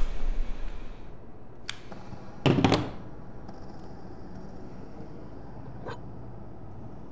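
A few sharp clicks and one heavier double knock about two and a half seconds in, over a low, steady room hum.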